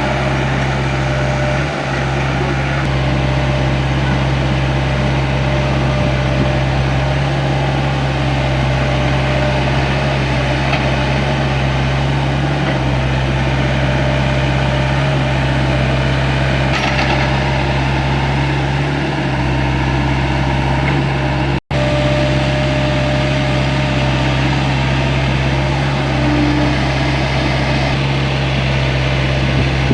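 Excavator's diesel engine running steadily with a constant low drone, briefly cutting out for an instant about two-thirds of the way through.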